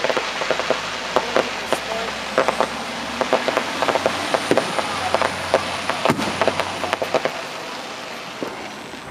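Fireworks crackling overhead: a dense stream of rapid small pops with a few louder bangs, the strongest about six seconds in, thinning out and fading toward the end.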